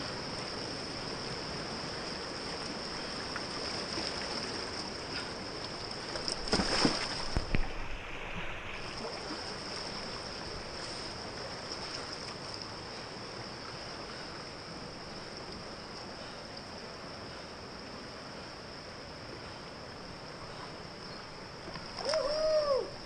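Running river water rushing past a whitewater kayak, with paddle splashes that are loudest about seven seconds in. A brief voice calls out near the end.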